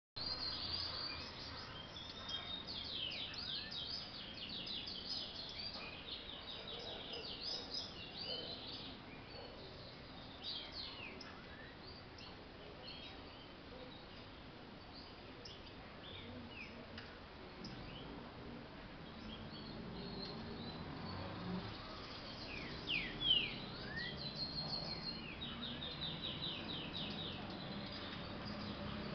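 Caged green-winged saltators (trinca-ferro) coming out of molt and warming up, giving bursts of rapid high chirping notes and scattered short whistles rather than full song. The bursts are thickest at the start and again past the middle, where a few falling whistles are the loudest notes. A low hum runs underneath in the second half.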